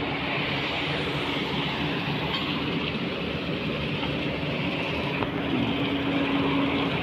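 Kobelco excavator's diesel engine running steadily, its hum rising in pitch and growing stronger about five and a half seconds in.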